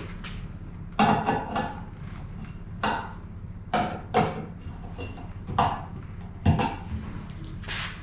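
Irregular metal clanks and knocks, about eight in all with short ringing, as parts of an electrical service assembly (meter box, hub, bolts) are handled on a workbench, over a steady low hum.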